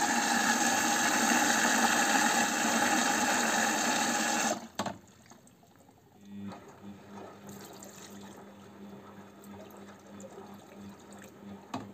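Samsung WF0800NCE front-loading washing machine with water rushing through it during its drum-cleaning cycle; the flow stops suddenly about four and a half seconds in. Near the middle a faint, steady low hum from the machine starts.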